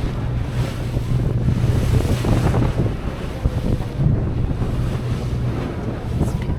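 Wind buffeting the microphone over the steady low drone of the tour boat's engines running under way, with the sea washing past.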